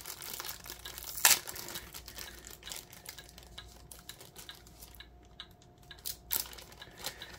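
Plastic bags crinkling and rustling as they are handled, with a sharp crackle just over a second in; it dies down for a couple of seconds past the middle, then picks up again near the end.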